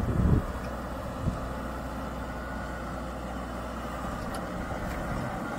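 Diesel tractor engines running steadily at low speed, with a brief louder surge right at the start.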